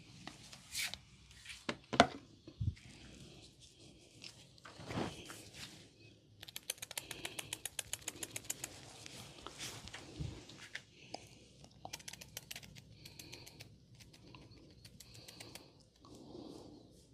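Massage with oiled hands close to the microphone: wet, sticky clicks and rubbing on skin. There is one sharp click about two seconds in, and a fast run of clicks in the middle.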